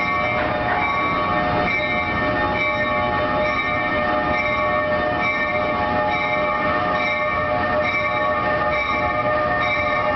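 NJ Transit ALP-46 electric locomotive moving past with its bell ringing, struck again a little over once a second, over the steady rumble of the train.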